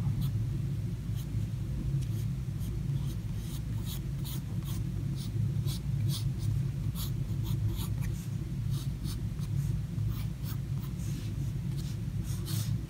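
Pencil sketching on thick sketchbook paper: quick scratchy strokes, one after another, with a steady low hum underneath.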